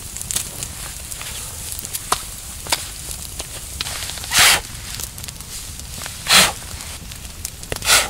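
Campfire crackling with scattered sharp pops, and three louder crunching rustles in dry leaves, about halfway through, near two-thirds and at the very end.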